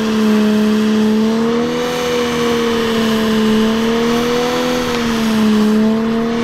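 Modified Nissan Skyline R34's engine held at steady high revs during a burnout, its pitch wavering only slightly, over the noise of the spinning rear tyres.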